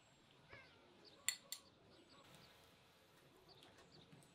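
Near silence with faint bird chirps and two quick, sharp clicks about a second in, a metal spoon tapping a small glass bowl.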